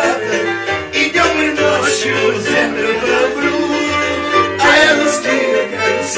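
Upbeat music with a steady, rhythmic bass line, held melody notes and occasional sharp percussion hits.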